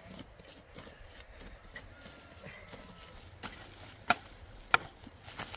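Hand hoes chopping into clumpy soil: sharp thuds, fainter at first, then four loud strikes about two-thirds of a second apart in the second half.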